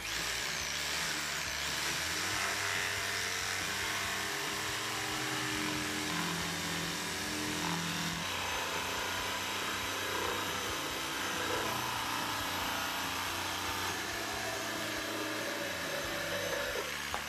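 Makita jigsaw running steadily as its blade saws a curved cut through a wooden board, then cutting off near the end.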